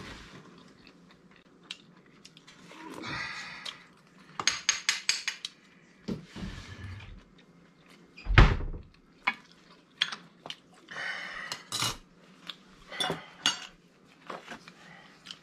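Metal fork clinking and scraping against mussel shells and a small plate, with a quick run of clinks about five seconds in and one heavier knock about eight seconds in.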